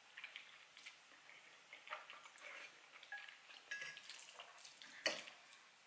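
Quiet eating sounds: a metal fork clicking and scraping against a ceramic bowl of spaghetti, with soft wet mouth sounds. Scattered faint clicks and a couple of brief rings, with a sharper click about five seconds in.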